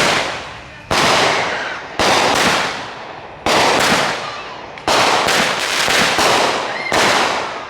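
Consumer fireworks going off at close range: about ten loud bangs, roughly one a second and sometimes two in quick succession, each followed by a fading crackle and hiss.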